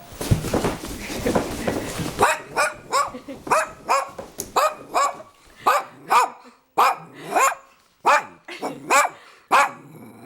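A dog barking over and over, about two barks a second, after about two seconds of rough, noisy rushing at the start.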